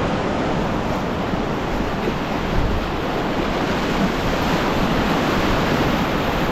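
Whitewater river rapid rushing, a loud, steady noise of churning water, with wind buffeting the microphone.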